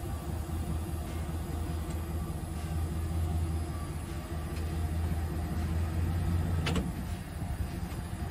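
Pickup truck running, heard from underneath near its driveshaft and exhaust: a steady low drone. One brief sharp tick about seven seconds in.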